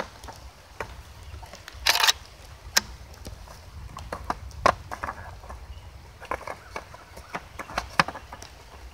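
Scattered metallic clicks and clacks from an SDS Lynx 12 box-magazine shotgun being handled while its magazine is loaded and fitted: a short clattering rattle about two seconds in, then single sharp clicks.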